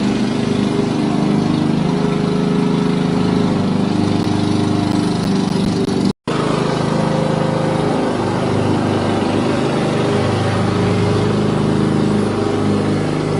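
Lawn mower engine running steadily. It cuts out completely for an instant about six seconds in, then carries on.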